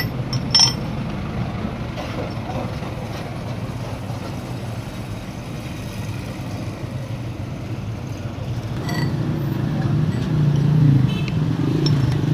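Low, steady motor-vehicle engine rumble that grows louder over the last few seconds, with a sharp click about half a second in.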